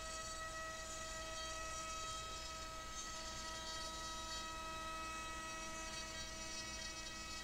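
Kronos Robotics KRMx02 CNC router running, its spindle milling a dado into a plywood panel under a dust shoe: a steady whine of several tones.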